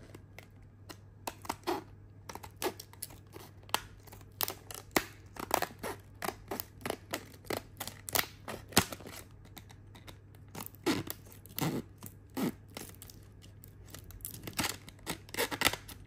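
Scissors snipping into a hard plastic blister pack: a string of short, sharp crunching cuts at about one or two a second, irregular, as the scissors, a bit rubbish, struggle through the stiff plastic.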